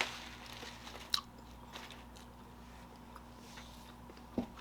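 A person biting and chewing vegan fish sticks smeared with jelly, faint wet mouth sounds broken by three sharp crunches or clicks, the loudest about a second in and one just before the end.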